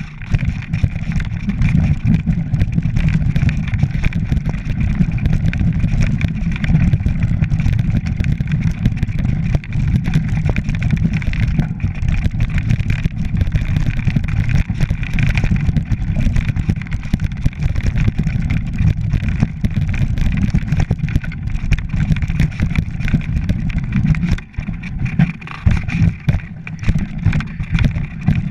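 Mountain bike descending a rough, stony track: tyres rattling and rumbling over loose rock, with a heavy, steady rumble of wind buffeting the action-camera microphone.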